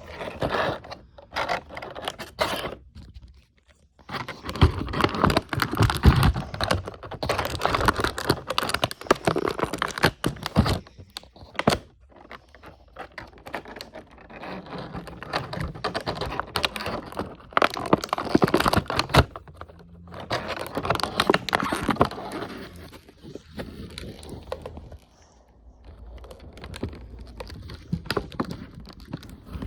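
Hands unpacking model airplanes from their box: plastic and cardboard packaging rustling, crinkling and scraping, with small clicks and knocks, in irregular bursts with brief pauses.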